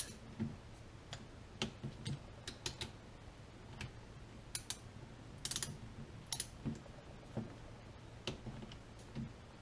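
Click-type torque wrench tightening cylinder head bolts: irregular light clicks and short ratcheting runs as the wrench is worked bolt by bolt. The wrench's torque-limit click is very light.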